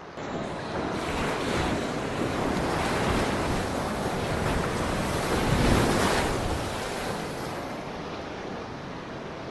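Rushing river water splashing around a kayak as it runs through whitewater. It starts suddenly, swells to its loudest about six seconds in, then eases off.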